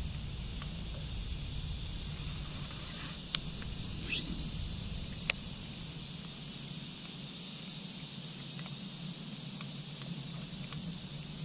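Steady high buzz of summer insects, with a low rumble that fades out about two-thirds of the way through. Two sharp clicks about two seconds apart, the second louder, and a brief faint chirp between them.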